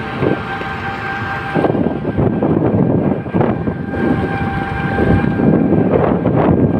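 Wind buffeting the microphone of a phone carried on a moving vehicle, with road rumble underneath. A thin steady whine comes in twice, each time for about a second.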